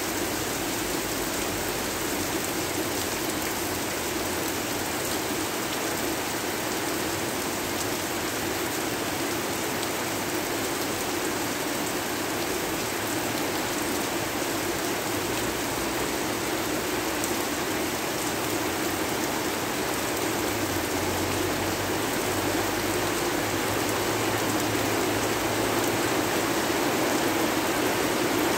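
Steady heavy rain falling, a dense even hiss with no breaks, growing slightly louder near the end.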